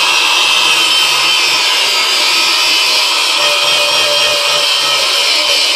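Cordless Ryobi angle grinder running steadily while working against a steel lawnmower blade.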